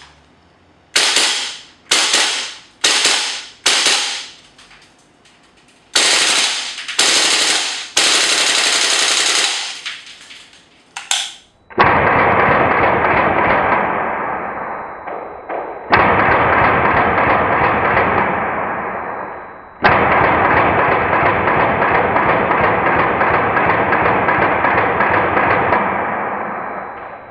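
GHK AKM gas blowback airsoft rifle firing: several short bursts, then longer bursts, each shot a sharp clatter of the cycling bolt. From about twelve seconds in it fires long unbroken strings of rapid automatic fire, with two brief breaks, duller in tone than the earlier bursts.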